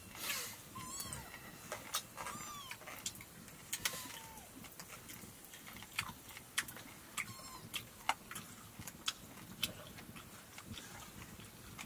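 A cat meowing in short calls that rise and fall, several in the first few seconds and once more about seven seconds in, over scattered sharp clicks.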